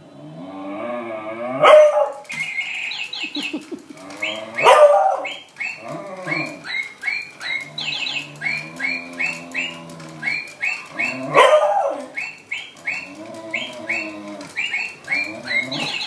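A beagle howls and bays in long, drawn-out howls, with three louder cries about 2, 5 and 11 seconds in. Over it an electronic toy parrot chirps in short, high, evenly spaced chirps, about two a second.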